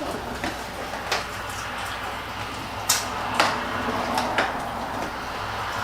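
Hard plastic doll parts and accessories being handled, giving about six sharp clicks and knocks spread through a few seconds over a steady background hiss.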